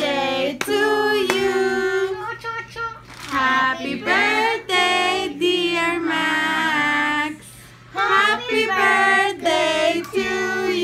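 A group of family voices, women and children among them, singing a birthday song together in long held notes, with a short pause about three quarters of the way through.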